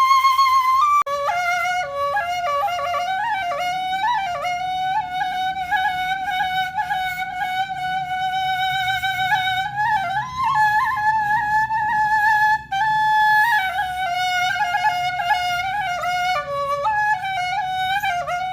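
Background music: a flute-like woodwind melody, wavering in pitch, over a faint low accompaniment.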